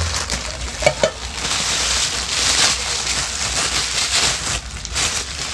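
Plastic wrapping crinkling and rustling as it is pulled off an air fryer's crisper plate, a dense run of small crackles.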